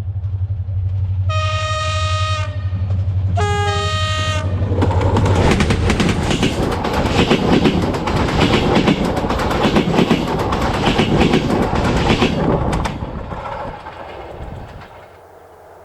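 A train approaching with a low engine rumble, sounding its horn twice (a steady chord, then a shorter blast that changes pitch), then passing with dense, rapid clickety-clack of wheels over the rail joints that fades away near the end.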